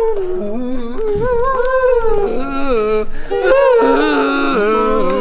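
Wordless singing: a melody sung in long, wavering notes that slide up and down.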